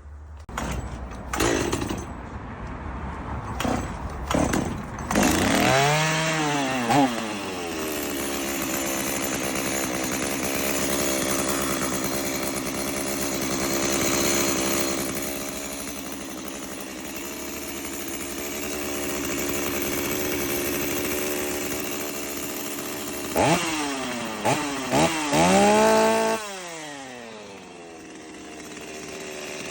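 Holzfforma G255 two-stroke chainsaw starting after a few short knocks about six seconds in, then running steadily. Near the end the throttle is blipped several times, with sharp rising revs, before it drops back to idle.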